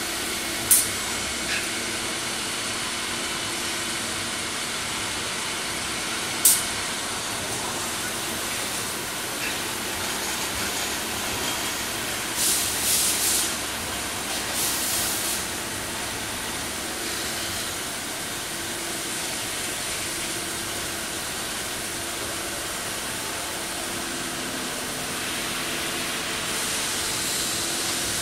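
Cutting oil flushing over the work inside a machine tool while a small adjustment screw is machined: a steady hiss and splash of coolant over the machine's hum. Two sharp clicks come in the first few seconds, and the hiss surges louder a few times around the middle.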